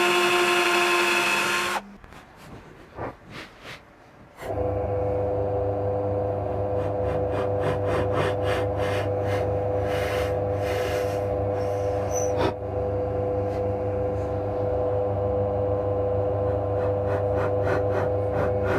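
A power drill runs and stops about two seconds in. A few seconds later a drill press motor starts and runs steadily with a low hum, boring dowel holes in elm with a scraping cutting noise and light clicks.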